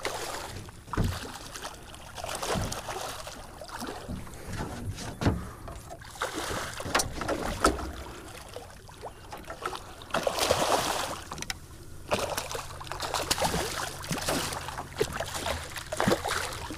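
A hooked bull redfish thrashing and splashing at the surface beside a boat, in irregular surges, with scattered sharp knocks on the boat.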